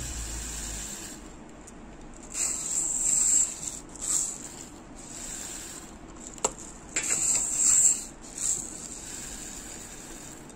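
Dry long-grain rice pouring from a plastic measuring cup into a clay pot, the grains hissing and rattling in several short pours.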